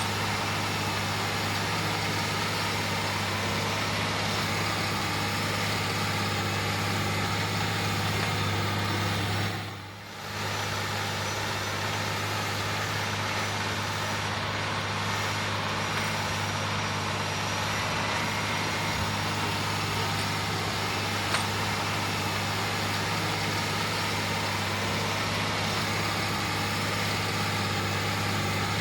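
John Deere 9360R tractor's diesel engine running steadily under load while pulling a moldboard plow, a constant low hum with a dense mechanical din above it. The sound drops out briefly about a third of the way through, then comes back the same.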